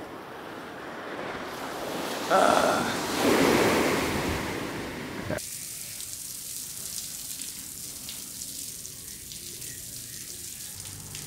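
Ocean waves breaking, with wind on the microphone and a louder surge about two seconds in. The sound cuts off suddenly about halfway through and gives way to a quieter, steady hiss.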